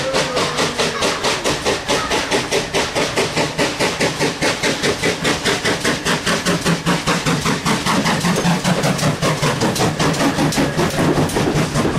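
Great Western 64XX 0-6-0 pannier tank locomotive working under steam, its exhaust beating in a quick, even rhythm as it runs in close past the listener, with a deeper rumble from the engine and coaches over the last few seconds as it draws alongside.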